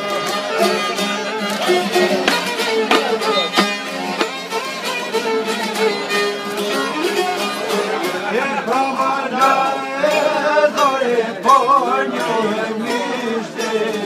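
Albanian folk music: a violin playing a wavering melody over plucked long-necked lutes. The violin line stands out most in the second half.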